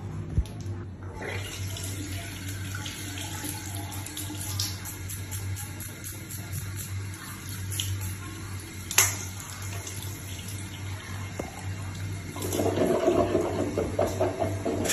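Water running from a tap at a bathroom sink while teeth are brushed, getting louder about three-quarters of the way through. A single sharp click about nine seconds in, over a low steady hum.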